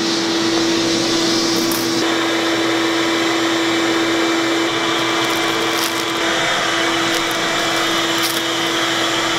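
RIDGID wet/dry shop vacuum running steadily, a constant motor hum over an airy hiss, with a few brief clicks.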